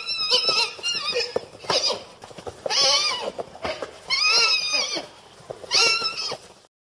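Przewalski's horse whinnying: about five separate neighs with a quavering, wavering pitch. The sound cuts off suddenly near the end.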